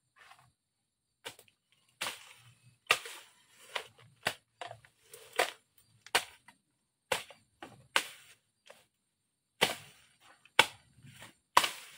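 Bolo (machete) strokes chopping through brush: a dozen or so sharp cracks at irregular intervals, about one a second, with short rustles of cut vegetation after some of them.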